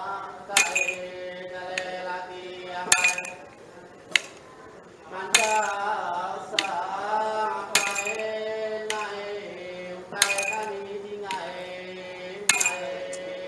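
Iban timang ritual chant: men singing in long, slowly wavering held notes, while their tall ritual staffs strike the floor in a walking rhythm, a metallic jingle about every second and a bit.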